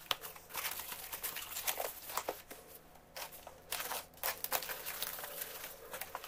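Cardboard shipping box being handled and opened: packing tape slit with a pointed metal tool and the flaps pulled open. An irregular run of scrapes, rustles and small sharp clicks.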